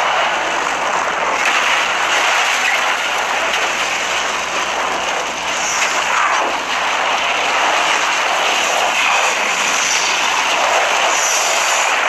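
Film sound effect of a fire tornado: wind and flames rushing in a loud, steady, jet-like noise.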